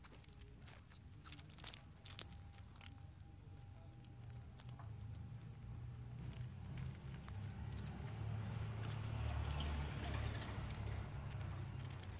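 Two mole rats fighting on loose gravel: scattered light clicks and patters of scuffling, with one sharp click just after the start. A low rumble swells in the second half, and crickets chirp steadily underneath.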